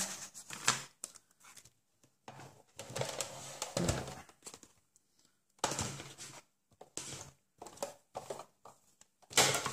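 Card stock and paper supplies being shuffled and slid across a craft mat, in short irregular rustles with a few light knocks as items are moved aside.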